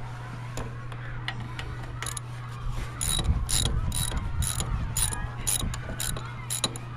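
Socket ratchet wrench clicking in repeated back-and-forth strokes, about two a second, starting about two seconds in. It is loosening the bolts that hold the go-kart's rear axle to the frame.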